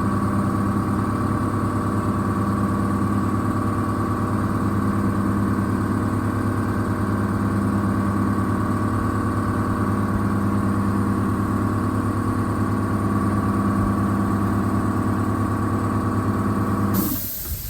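A motor or engine running steadily, an even hum made of several fixed tones, that cuts off abruptly near the end.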